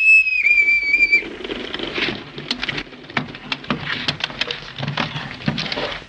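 A boatswain's pipe sounding one loud held whistle note, which breaks briefly and then stops about a second in. It is followed by a run of irregular knocks and scuffles, sound effects of a sea chest being brought on deck.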